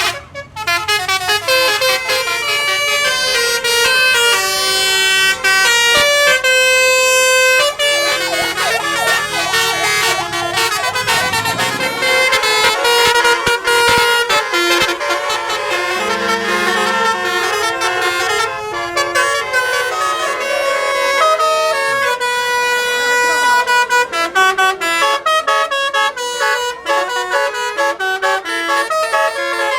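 Basuri telolet horn on a tour bus playing a melody: a quick run of stepped horn notes, with a few notes held longer.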